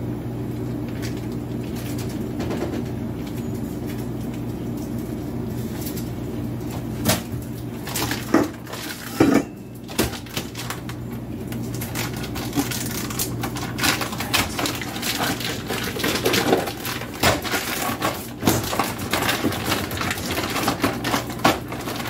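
Kitchen counter handling: clicks, knocks and clatter of containers and utensils. They start about seven seconds in and grow busier toward the end, over a steady low hum.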